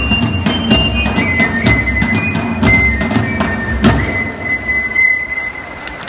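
Japanese festival dengaku music: a high flute melody over steady drumbeats about twice a second and sharp clacking percussion. The drums and clacking end on a final strike about four seconds in, leaving the flute holding one long note.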